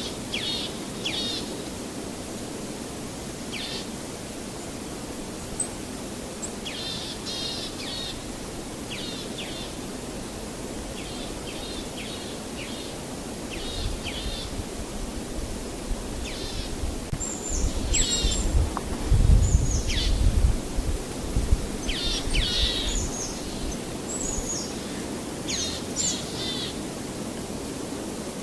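Birds chirping outdoors, short high calls again and again, some sliding down in pitch, over a steady background hiss. A low rumble builds in the middle and is loudest about two-thirds of the way through.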